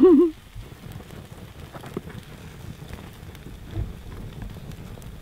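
Wood campfire crackling, with scattered small pops over a low, even hiss.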